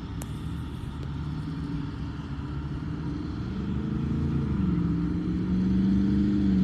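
A motor vehicle's engine running with a low hum that grows steadily louder and shifts in pitch about halfway through.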